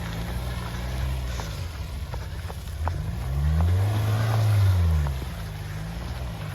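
Hyundai ix35's 2.0 diesel engine running under load, revving up about three seconds in and dropping back about two seconds later, with a few scattered sharp knocks.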